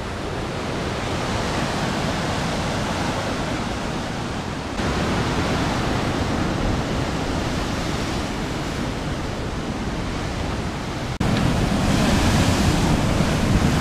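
Heavy surf breaking and washing against rocks, mixed with wind rushing over the microphone. The rushing noise jumps abruptly louder about five seconds in and again about eleven seconds in.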